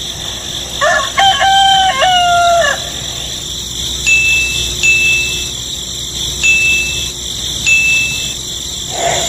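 A rooster crowing once, a call of about two seconds. It is followed by short, high, steady tones repeating about once a second over a steady background hiss.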